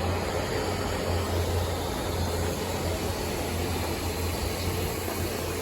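Steady low rumble with an even hiss from a locomotive standing at a station platform.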